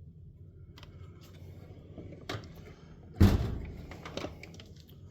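Metal tool chest drawers being opened and shut: a few light clicks, then a loud knock about three seconds in, and more small clicks after.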